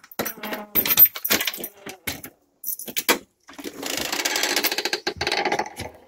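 Metal clicks and rattles of a doorknob and its latch assembly being worked loose and pulled from the door, followed about three and a half seconds in by a rasping rattle that lasts about two seconds.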